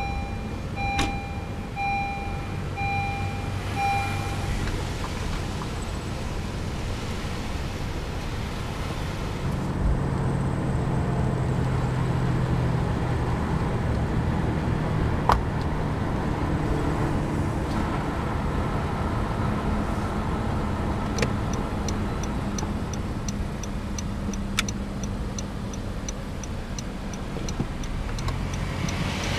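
Car engine and road noise heard from inside the cabin while driving off and pulling away. For the first few seconds a beep repeats about once a second. From about two-thirds of the way through, the turn signal ticks steadily until the car reaches an intersection.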